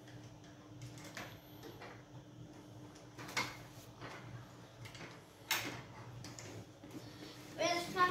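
Plastic Duplo bricks and toy pieces clicking and knocking as they are handled, a few separate sharp clicks over a faint steady hum. A child's voice starts near the end.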